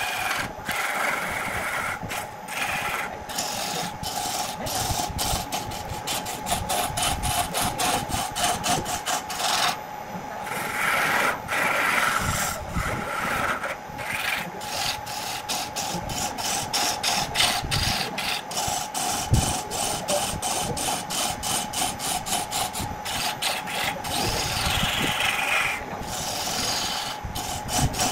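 Turning gouge cutting into a spinning wooden log on a wood lathe: a steady scraping rasp of the cut over an even hum, with regular ticks about two or three a second. The cut turns higher and brighter for a few seconds near the middle and again near the end.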